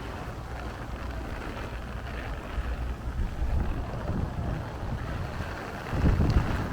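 Gusty storm wind buffeting the microphone, a steady low rumble that swells in gusts, with a stronger gust near the end.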